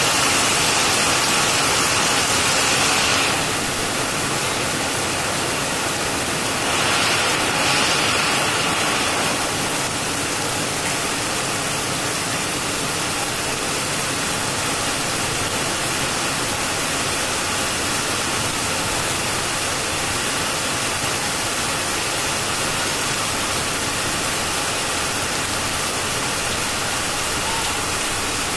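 Heavy rain pouring down steadily, a dense hiss. It swells louder during the first three seconds and again around seven to nine seconds in.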